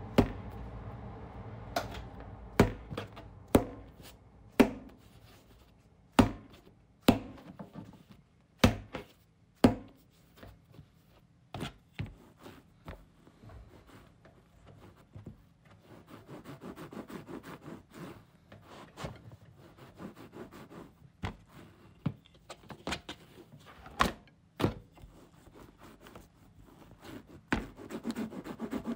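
Pizza dough being slapped down hard onto a work surface again and again, sharp thumps about a second apart in the first ten seconds. Later come sparser knocks and stretches of quick rhythmic rubbing, as the floured dough is rolled out with a rolling pin.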